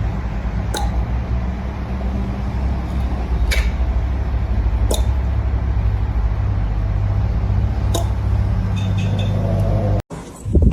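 A steady low mechanical hum with a few short clicks scattered through it, cutting off abruptly near the end.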